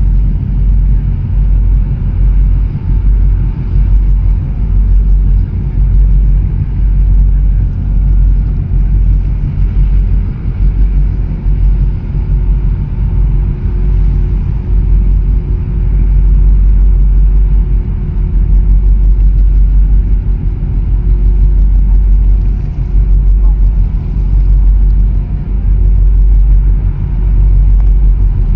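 Wind buffeting the microphone: a loud, uneven low rumble that swells and dips irregularly, with a faint steady hum under it for a while in the middle.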